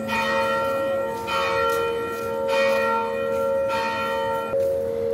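Church bell ringing, struck about once every second and a bit, each stroke ringing on into the next. It is rung at the elevation during the consecration at Mass.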